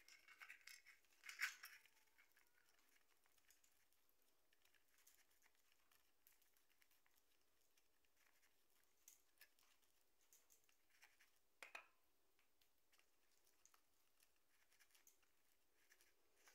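Faint scratching, crinkling and clicking of cardboard as a lovebird picks at a cardboard tube with its beak and moves over a cardboard floor, in scattered short bursts. The louder bursts come about a second and a half in and again near twelve seconds.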